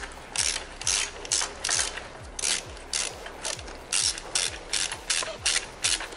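Ratchet wrench clicking in short repeated back-strokes, about two to three a second, as a 12 mm socket on a long extension unscrews an exhaust header nut.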